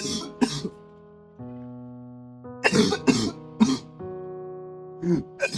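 A person sick with a serious cough coughing in short harsh bunches: two coughs at the start, a run of about four in the middle, and more near the end. Background music with slow sustained keyboard chords plays under them.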